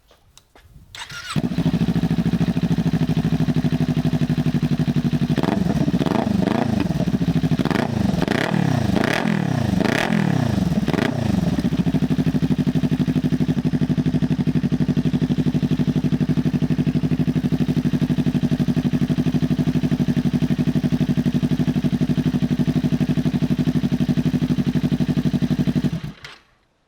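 2020 Kawasaki Ninja 400's parallel-twin engine idling through a Musarri GP slip-on exhaust with its silencer insert removed, so the exhaust is fully open. Between about five and eleven seconds in it is revved in about six quick blips, each rising and falling, then it settles back to a steady idle. The sound starts abruptly about a second in and stops abruptly near the end.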